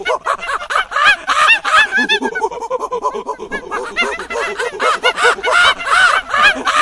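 A group of monkeys calling together: many short, arched, honking calls overlapping densely throughout.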